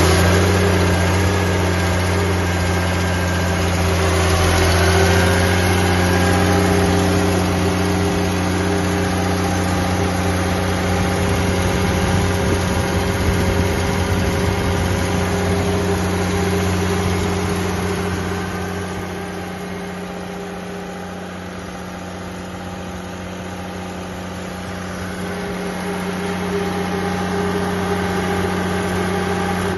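Diesel engine of an enclosed portable air compressor running at a steady idle, just after starting, with an even, unchanging pitch.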